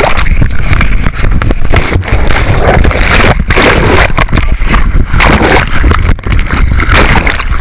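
Water sloshing and splashing over a GoPro camera as it tumbles in and out of shallow water, loud throughout with a heavy low rumble and repeated surges of splash.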